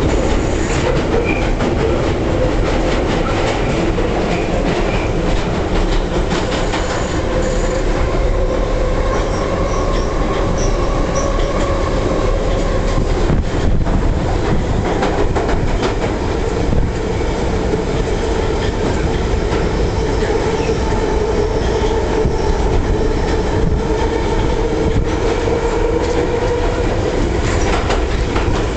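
London Underground Piccadilly line train running through the tunnel, heard from inside the carriage: a loud steady rumble with rapid clicks of the wheels over the rail and a wavering whine from the wheels.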